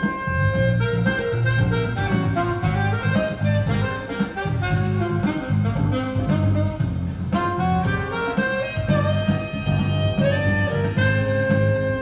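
Saxophone playing a jazz melody over a pulsing bass accompaniment.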